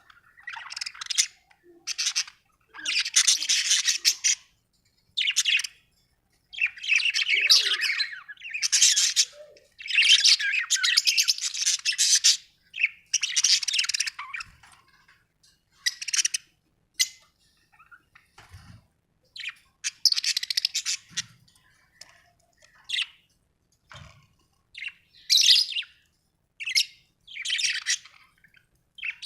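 Budgerigars chirping and chattering in bursts of up to a couple of seconds, with short pauses between.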